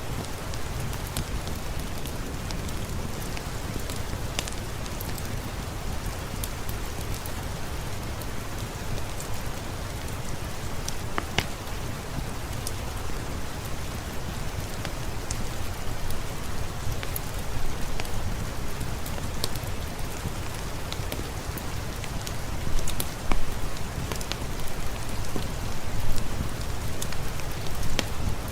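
Steady rain hiss mixed with the scattered sharp pops of a crackling fireplace, a few louder pops near the end.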